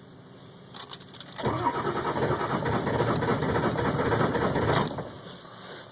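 2002 Ford F-350's 7.3-liter Powerstroke diesel being cranked by the starter for about three and a half seconds, then stopping without the engine catching: a hard cold start.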